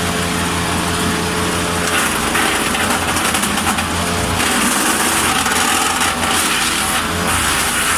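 Engine-driven wood chipper running steadily, with the harsh rasp of branches being fed in and chipped coming in stretches.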